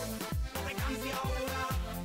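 Background music with a steady beat and deep kick drums that fall in pitch.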